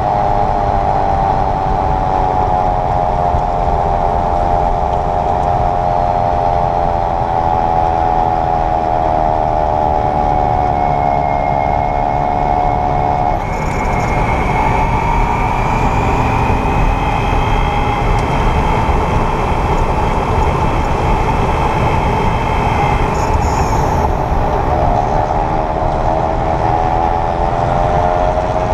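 2022 Kia EV6 front drivetrain whirring while driving in Eco mode, a mechanical buzz that rises and falls in pitch with speed over steady road noise. It cuts off abruptly about halfway through and comes back near the end. The whir appears around 28-30 mph in Eco and Normal mode, when the front motor is not engaged.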